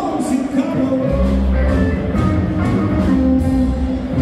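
Rock music with guitar; the low bass drops out for about the first second, then comes back in.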